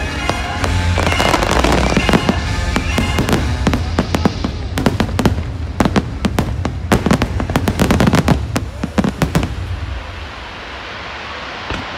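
Fireworks bursting over a loud music soundtrack. The cracks come thick and fast in a rapid volley through the middle, then die away about ten seconds in, leaving only quieter sound.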